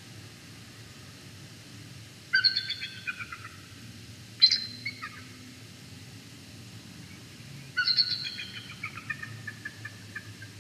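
Bald eagle calling: three bouts of rapid, high chittering notes. The first two are short, and the third and longest trails off near the end.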